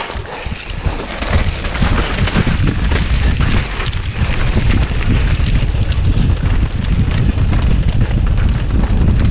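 Mountain bike descending fast over rough ground: heavy wind buffeting on the microphone with constant rattling and knocks from the bike.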